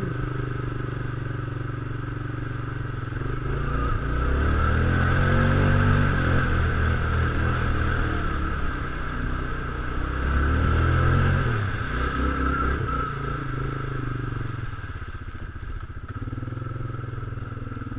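Small off-road vehicle's engine running as it is ridden, speeding up and easing off twice: louder and higher about four to seven seconds in and again around eleven seconds, then settling to a lower, steady run.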